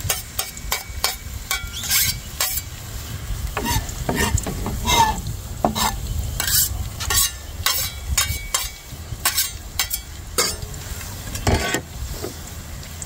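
Chopped red onion sizzling in hot oil in a pot, with irregular knocks and scrapes of a chef's knife and metal bench scraper on a plastic cutting board.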